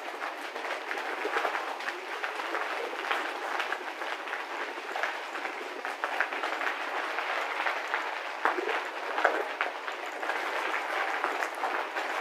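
Bicycle tyres rolling over loose gravel, with a steady stream of small irregular clicks and rattles.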